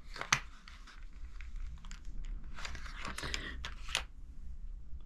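Hands rummaging through packaging in a box: a sharp click about a third of a second in, then a burst of crinkling and rustling from just before the three-second mark to about four seconds in.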